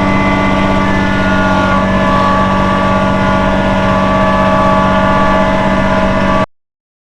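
Kubota B2650 compact tractor's diesel engine running at a steady speed, cutting off abruptly near the end.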